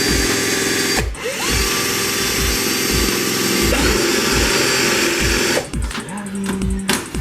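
A power drill running in bursts: it stops about a second in, whines back up to speed and holds until about five and a half seconds, then spins up again near the end. It is drilling the spoiler's mounting holes for a wicker bill. Under it runs electronic music with a regular deep bass kick.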